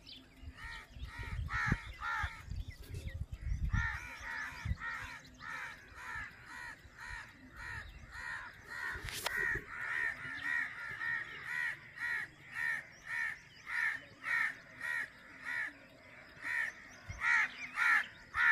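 A crow cawing over and over, about two caws a second, with short pauses about three seconds in and again near the end.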